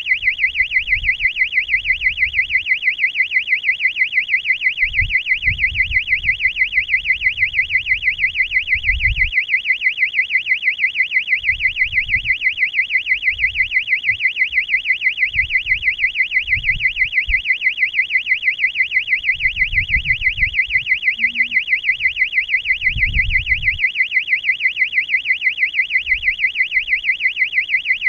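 Electronic beeper in the balloon payload sounding a high warbling tone that sweeps up and down about four times a second without a break, with scattered low thuds underneath.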